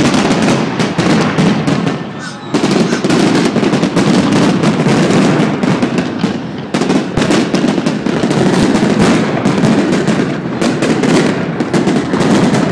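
Fireworks display: loud, rapid, continuous bangs and crackles, with brief lulls about two and six and a half seconds in.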